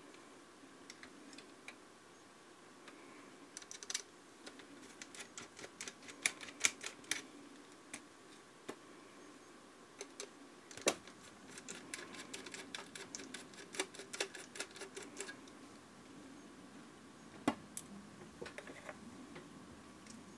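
Small sharp metallic clicks and taps of a precision screwdriver working the tiny screws out of a compact camera's metal shield. The clicks come in two quick runs, with a few louder single clicks between them.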